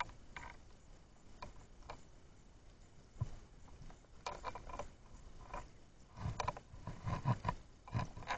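Irregular underwater clicks and knocks picked up by a camera submerged on the seabed, coming in short clusters that grow denser and louder in the second half.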